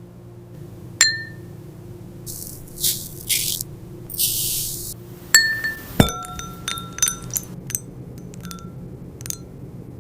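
Glass clinking and ringing: sharp strikes with a brief ringing tone about a second in and twice around the middle, then a quick run of light ticking clinks. Between them come a few short hissy crunches, all over a low steady hum.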